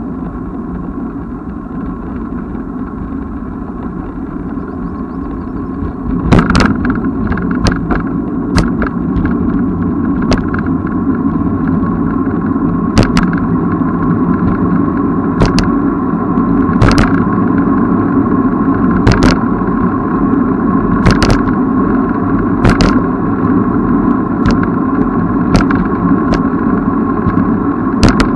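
Steady rush of wind and road noise from riding a bicycle, getting louder about six seconds in. Sharp knocks or rattles come every second or two.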